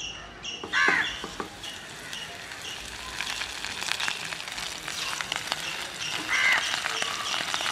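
Coated mackerel shallow-frying in hot oil in a pan: the oil sizzles and crackles, building up from about two seconds in as the fish go in. A bird calls briefly about a second in and again near the end.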